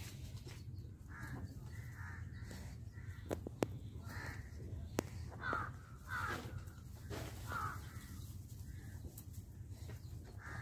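Short bird calls repeating about once a second, some falling in pitch, with a few sharp clicks near the middle.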